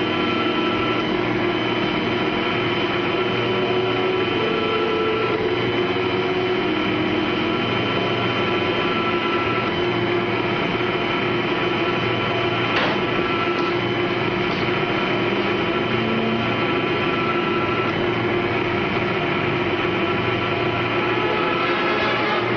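A steady mechanical drone with a hum, holding an even level throughout.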